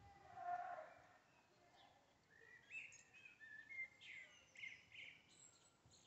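Faint birdsong: a run of quick chirps and short trills, busiest from about two seconds in until near the end, after a brief softer call in the first second.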